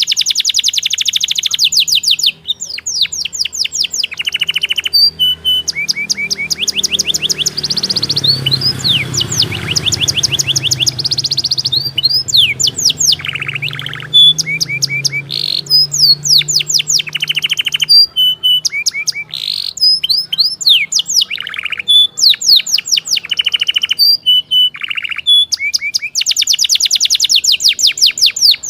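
Domestic canary singing a long, continuous song of fast trills and rapidly repeated notes, broken by short single whistled notes and brief pauses.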